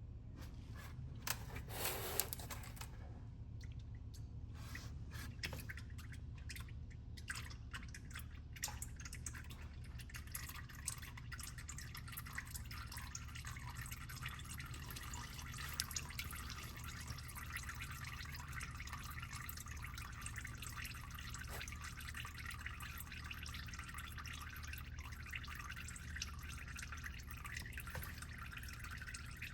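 Engine oil dripping and trickling into a drain pan, a dense steady patter of small drips, with a few sharp clicks of handling about two seconds in.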